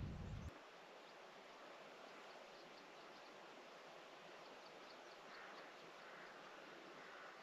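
Near silence: faint open-air ambience, a steady low hiss with scattered faint high chirps. A low wind rumble on the microphone cuts off suddenly about half a second in.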